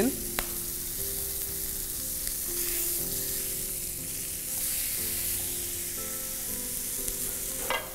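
Chicken pieces searing in hot olive oil in a non-stick frying pan, sizzling steadily just after being flipped, with a single sharp click about half a second in.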